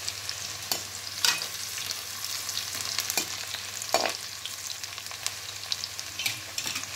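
Chopped onion and green chilli sizzling in hot tempering oil with mustard, cumin and fennel seeds in a metal kadhai, a steady hiss. A metal slotted spoon stirring them scrapes and knocks against the pan several times, loudest about a second in and again about four seconds in.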